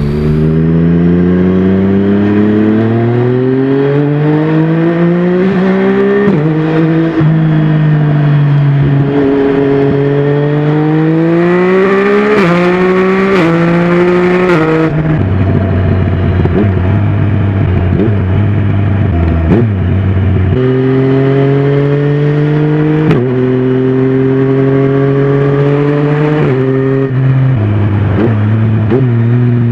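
Yamaha Tracer 900's three-cylinder engine through a Mivv Oval titanium exhaust, accelerating up through the gears with quick, clutchless quickshifter upshifts that drop the pitch sharply each time. About halfway it eases off to a low steady run, then pulls up through the gears again with two or three more quick shifts.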